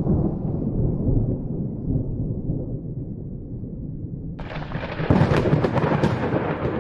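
Thunder rumbling low and fading away, then about four and a half seconds in a sudden loud hiss with dense crackling, like heavy rain, cuts in.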